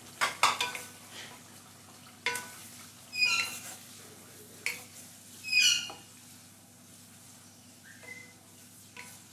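Wooden spatula stirring bottle gourd chunks through wet masala in a metal karahi: a handful of scrapes against the pan over the first six seconds, some with short squeaks, the loudest a little past halfway, over a faint sizzle.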